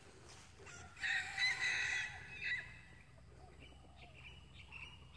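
A rooster crowing once, faintly, starting about a second in and lasting about a second and a half.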